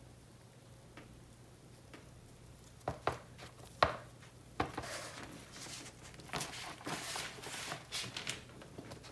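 A stretched canvas knocks a few times against a paper-covered table as it is set down, loudest about four seconds in. It is then scraped and rustled across the kraft paper as it is shifted into place.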